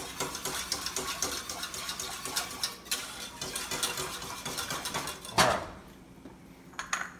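A metal whisk clicking and scraping rapidly against the inside of a stainless steel saucepan as a creamy sauce is whisked. The stirring stops after a louder knock about five seconds in.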